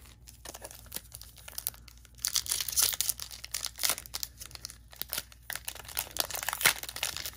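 Foil wrapper of a Topps Chrome trading-card pack being torn open and crinkled by hand, faint at first and getting louder and busier about two seconds in.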